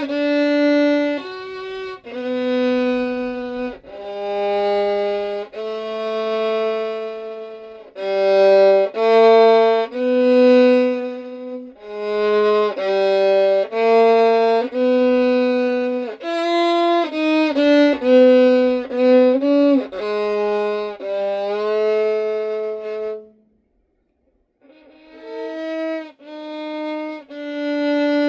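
Solo violin played with the bow: a slow melody of held notes, with a quicker run of short notes a little past the middle. The playing breaks off for about a second roughly 23 seconds in, then carries on.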